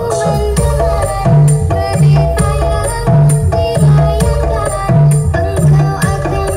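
Loud music with a steady deep drum beat, percussion and a melody line.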